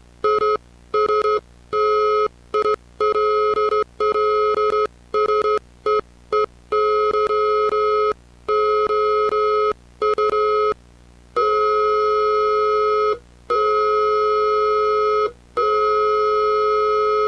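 Electronic alert tone beeping in an irregular on-off pattern of short and long pulses, ending with three long tones.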